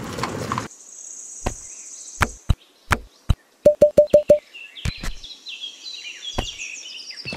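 Small stones knocking together as pebbles are dropped into a small wicker basket: a few scattered clicks, then a quick run of five short ringing knocks. Birds chirp in the background during the second half.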